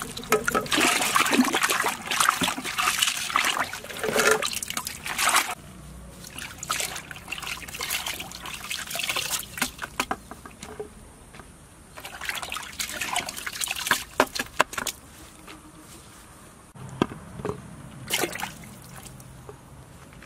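Hands swishing cabbage leaves, cucumbers and a tomato in a bucket of water to wash them, sloshing and splashing in several spells, with water trickling off as the vegetables are lifted out.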